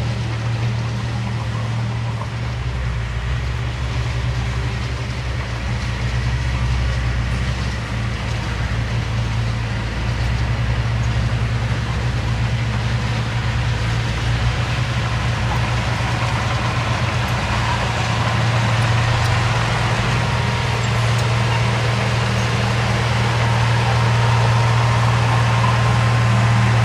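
A heavy construction machine's diesel engine running steadily, growing louder toward the end, with a faint high whine joining in the second half.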